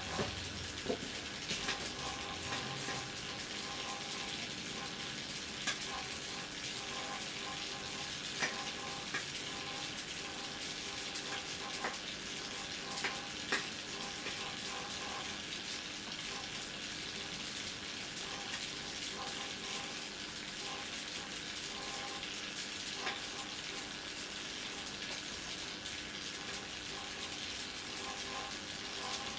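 High-voltage arcing inside a plasma TV panel fed about 2,000 V from a microwave-oven transformer: a continuous crackling hiss with irregular sharp snaps, over a steady hum.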